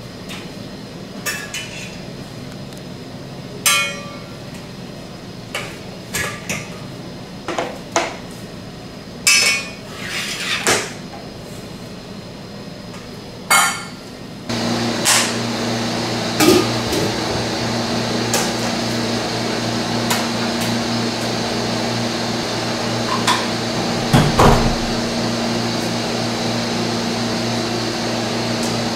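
Sharp metal clanks and knocks of a stainless-steel guitar cutter (wire chocolate cutter) being worked and handled, about a dozen separate strikes. About halfway a steady machine hum starts and continues under a few more knocks.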